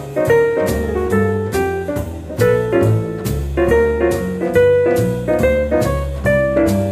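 Jazz piano trio playing: piano lines over double bass and drums, with cymbal strokes keeping time about twice a second.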